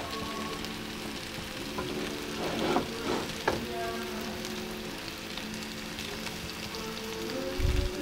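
Zucchini kookoo frying in oil in a pan, a steady sizzle, with a metal spatula scraping and clinking against the pan and food a few times about three seconds in. A brief low thump comes near the end.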